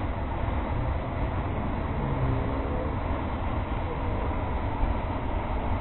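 River water rushing steadily over a concrete weir, a constant even rush with faint voices underneath.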